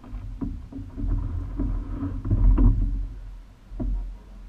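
Single scull being rowed: water rushing along the hull and the sculls working through the stroke, with a low rumble that swells in the middle and several short knocks.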